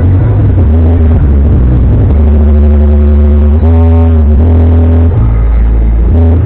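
Loud, distorted music from a sound system with a heavy, booming bass. A pitched melodic line, sung or synthesised, holds and bends its notes about halfway through.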